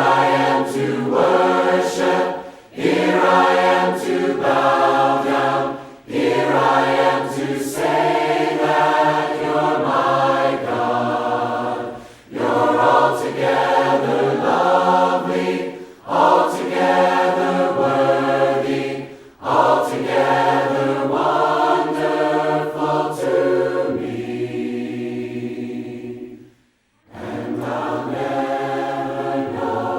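A cappella group of voices singing a hymn without instruments, in phrases a few seconds long with short breaths between them.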